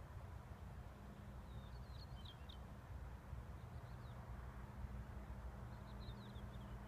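Faint, steady running of a distant New Holland TT55 tractor's diesel engine as it spreads urea fertilizer. Small birds chirp in short bursts about two seconds in and again near the end.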